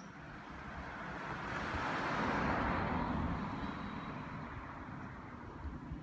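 A car passing by on the road: the tyre and road noise swells, peaks about halfway through and fades away, over a low background rumble.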